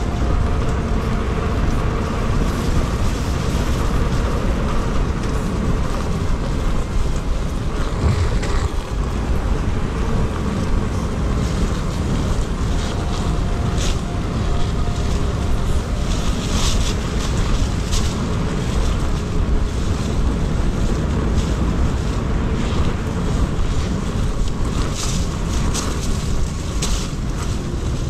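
Wind rushing over the microphone of a rider on a KingSong S22 electric unicycle, with a faint whine from the unicycle's electric motor that comes and goes. A few sharp clicks stand out in the second half.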